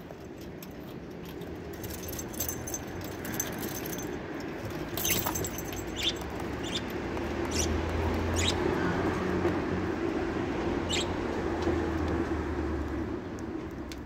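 Budgerigars pecking and shuffling in a tray of seed: a few short sharp ticks and scratches from their beaks and feet. Under them runs a low rumble that builds through the middle and eases off near the end.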